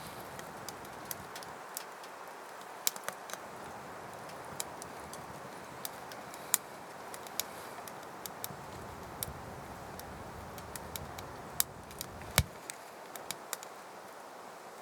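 Wood fire crackling in a woodstove: a steady hiss with irregular sharp pops and ticks, a louder pop about six and a half seconds in and another near twelve and a half.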